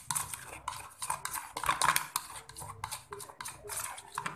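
Metal spoon stirring rice flour into water in a plastic container, scraping and tapping against the sides in quick, irregular strokes as the flour is mixed smooth so it won't clump.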